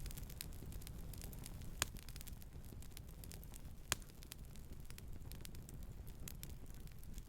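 Campfire crackling: frequent small snaps, with two sharper, louder pops about two seconds and four seconds in, over a low steady rumble.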